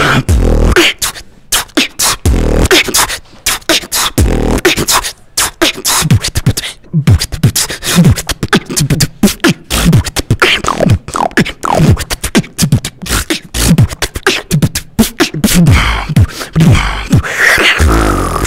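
Solo beatboxing into a close microphone: a dense, fast run of mouth-made percussive clicks and hits over deep bass booms, with short falling bass sweeps in the middle stretch.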